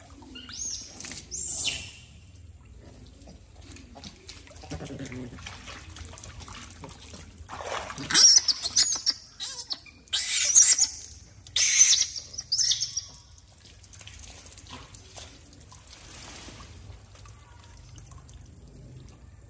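Macaques giving short high-pitched calls in a few bursts, loudest near the middle, over a steady trickle of water from a pipe into a pond.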